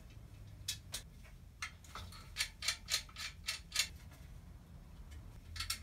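Sharp metallic clicks from hands-on work fitting a bicycle's rear wheel and hub in a repair stand, coming about three a second through the middle, with a quick cluster of clicks near the end.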